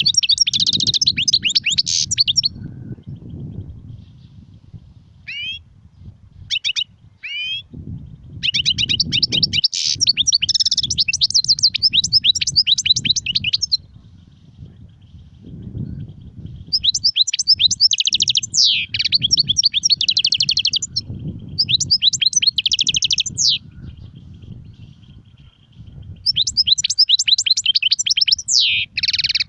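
European goldfinch singing: four bursts of rapid, high twittering song, each a few seconds long, with a few short chirps in between, over a low background rumble.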